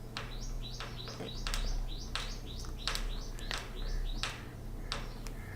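A small bird chirping over and over, short high chirps that each step down in pitch, about two a second. Sharp clicks are scattered among them.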